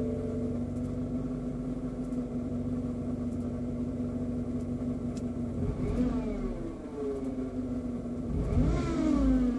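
BMW E87 engine running with a steady whining tone, blipped twice, near six and nine seconds, the tones rising and falling with the revs. This is the abnormal noise that a new alternator has not cured. A two-tone chime ends about half a second in.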